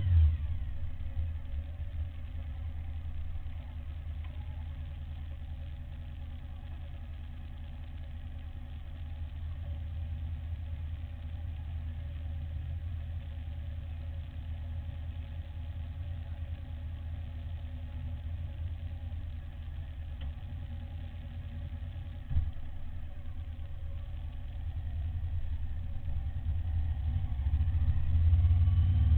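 Suzuki SV1000's V-twin engine idling at a standstill, with one sharp knock about three-quarters of the way through. Near the end it revs up as the bike pulls away.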